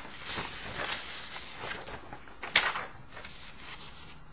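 Paper sliding and rustling on a desk as a cover sheet is pushed down over a printed page, with one sharper, louder crinkle about two and a half seconds in.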